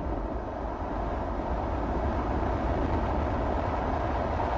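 Amiga demo soundtrack played over the hall's speakers: a steady, noisy rumble with no clear beat or melody.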